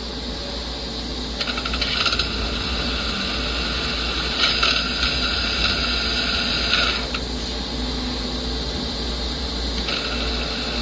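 Star SR-32J Swiss lathe's back four-station power-driven tool spindles running at low speed through their gear drive, giving a steady hum with a high, fast metallic rattle. The rattle comes in briefly about a second and a half in, then louder from about four and a half to seven seconds.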